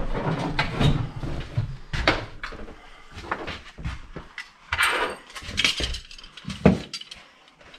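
Irregular light knocks, clicks and rustling.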